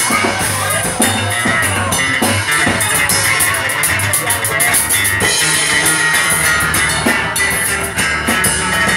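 Live band playing instrumentally: a drum kit with busy, rapid cymbal strikes and drum hits over electric guitar and steady low bass notes.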